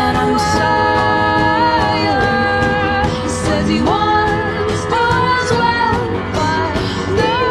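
A pop song: a sung melody in long held notes over instrumental backing with a steady beat.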